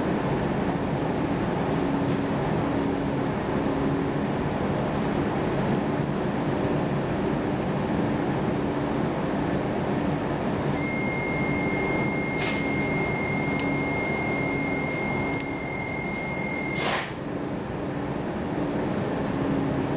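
Interior noise of an X10 commuter train: a steady rumble and ventilation noise with a regular throbbing hum. About halfway through, a steady high electronic beep starts and holds for about six seconds, then stops with a knock; a second knock comes about a second and a half into the beep.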